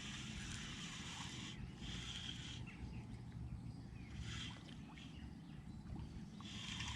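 Outdoor lakeside ambience: a steady low rumble with faint high bird calls coming and going every few seconds.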